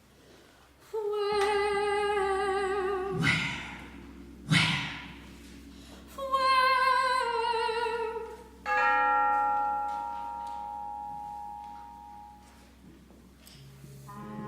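Live contemporary chamber music: a soprano holds a note with vibrato, two sharp percussion strikes ring out, then she sings a falling phrase. Near the end a long ringing tone slowly dies away.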